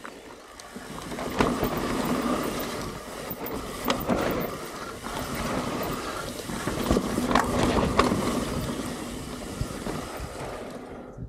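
Mountain bike running down a dirt trail: steady rushing of tyres and wind over the action camera's microphone, with a few sharp knocks and rattles from the bike over bumps. The noise swells about a second in and fades near the end.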